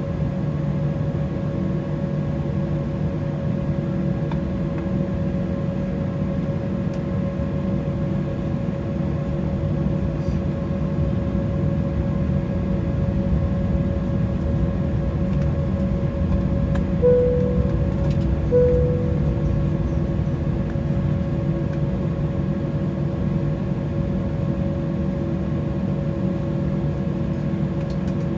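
Steady cabin hum of an Embraer E190 jet airliner on the ground, heard from a passenger seat: engine and air-system noise with several held tones. About two-thirds of the way in come two brief tones of the same pitch, about a second and a half apart, like a cabin chime.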